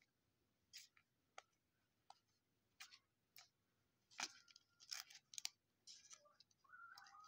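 Faint, scattered crinkles and clicks of a trading card pack's wrapper being torn open and handled by hand.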